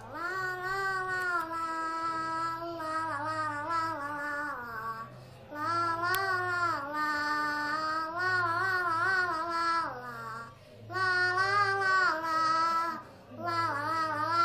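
A boy singing solo, holding long notes with a slight waver, in a few phrases separated by brief pauses for breath.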